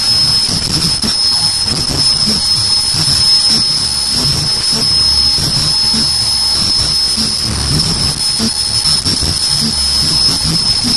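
Automatic inner-ear-loop face mask making machine running: a steady high-pitched whine over a continuous low mechanical clatter.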